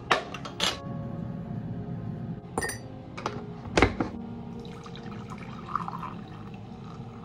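A few sharp clinks and taps from a metal tea tin and its lid, then water poured from a kettle into a ceramic mug from about halfway through.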